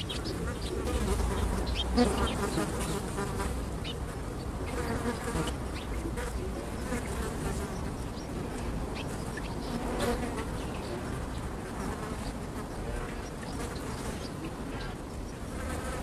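Blowflies buzzing, many short buzzes overlapping into a continuous drone.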